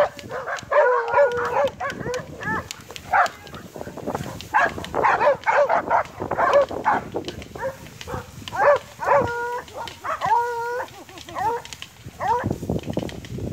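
Several dogs barking and yelping excitedly in a rapid, overlapping string, with a few longer held howling calls, as they chase down a herd of collared peccaries.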